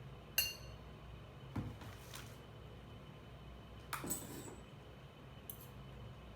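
Cutlery clinking against dishes, five light knocks, the first and fourth ringing briefly, over a faint steady low hum.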